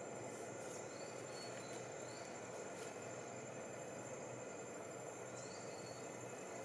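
Rainforest ambience: a steady high insect drone and a few short rising chirps over a constant low rushing noise.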